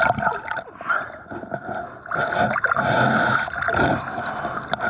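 Lake water splashing and sloshing around a swimmer, uneven, easing off about a second in and picking up again a second later.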